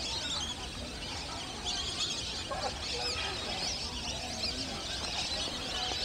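A dense chorus of many birds chirping and twittering continuously, with a few lower calls a couple of seconds in and a low rumble underneath.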